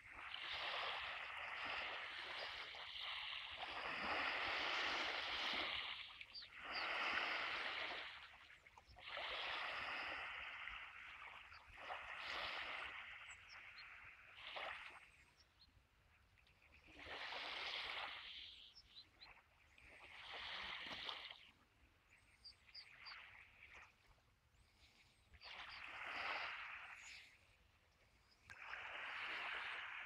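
Small waves of a calm sea lapping and washing up a sandy beach: a soft hiss that swells and fades, each wash lasting one to three seconds and coming every few seconds, with a couple of longer lulls.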